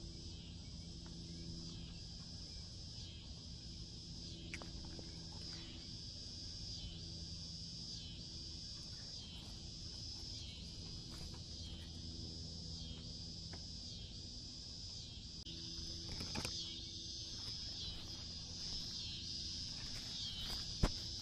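Insects chirring in a steady high chorus that swells and dips about once a second, with a few sharp clicks near the end.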